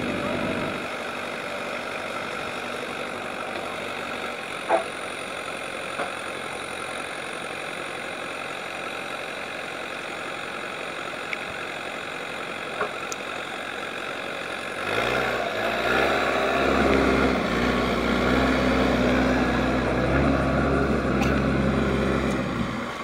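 JCB backhoe loader's diesel engine running steadily, with a few short knocks around five and six seconds in. About fifteen seconds in it gets louder and heavier, the engine working under load as the machine drives through loose earth.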